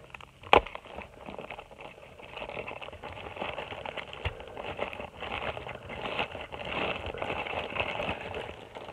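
Toy packaging, a cardboard box and its plastic pack, rustling and crackling as it is handled to take the toy out, with one sharp knock about half a second in.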